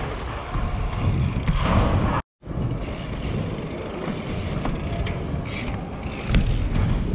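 BMX bike rolling over plywood ramps: tyres rumbling on the wood, with the rear hub ticking steadily as it coasts. The sound cuts out completely for a moment a little after two seconds.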